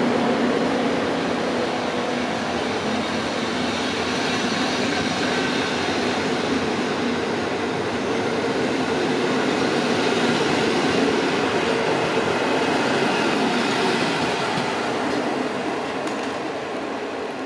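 PKP Intercity TLK passenger coaches rolling past along the platform as the train departs, with a steady rumble of wheels on the rails. The sound fades over the last few seconds as the rear coach pulls away.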